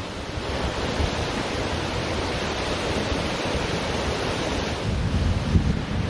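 Ocean surf washing onto a beach, a steady hiss of breaking water. Wind buffets the microphone underneath, with a low rumble that grows stronger near the end.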